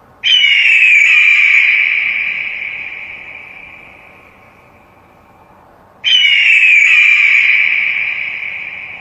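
Eagle screaming twice, about six seconds apart. Each scream starts sharply with a short downward slide in pitch, then is drawn out and trails off slowly over several seconds.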